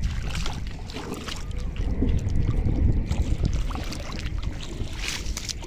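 Muddy flash-flood water rushing, a steady noisy wash with a heavy low rumble from wind buffeting the microphone.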